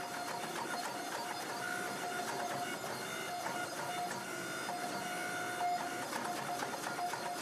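Hydraulic forging press running with a steady whine as its flat dies squeeze a red-hot damascus steel billet flat.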